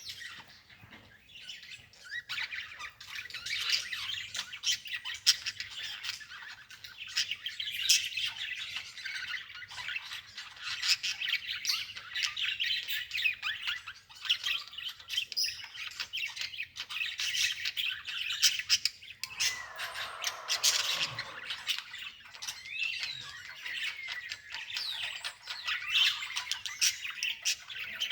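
Small birds chirping and squawking continuously, a dense busy chatter. A lower sound falls in pitch about two-thirds of the way through.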